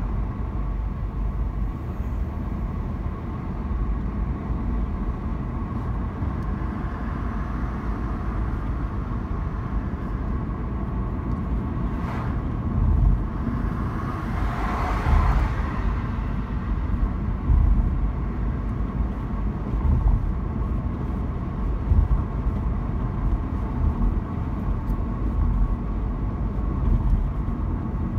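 Steady low rumble of a car driving on asphalt, heard from inside the cabin: tyre and engine noise with occasional low bumps. About halfway through, a brief rushing sound swells and fades.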